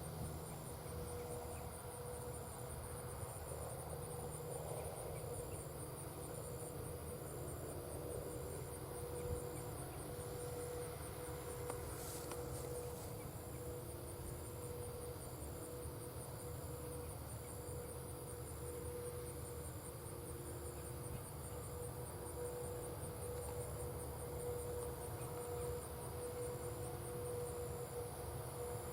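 Field insects, crickets or similar, trilling fast and high, with a second insect chirping regularly about one and a half times a second. Underneath runs the steady low hum of distant farm machinery.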